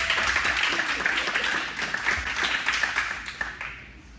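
Audience applauding: many hands clapping at once, dying away near the end.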